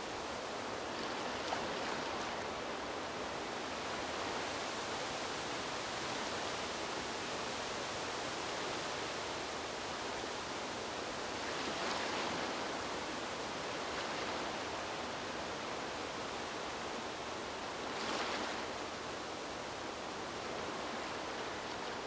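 Gentle lagoon waves washing in under a steady hiss of wind through palm fronds, swelling briefly twice, about twelve and eighteen seconds in.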